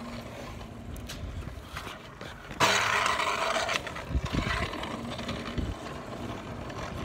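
Scooter wheels rolling over pavement, with wind rushing over the phone's microphone. The noise gets suddenly louder about two and a half seconds in for around a second, and a few low bumps follow.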